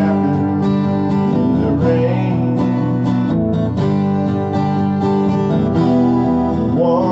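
Acoustic guitar music with strummed chords, in a steady rhythm.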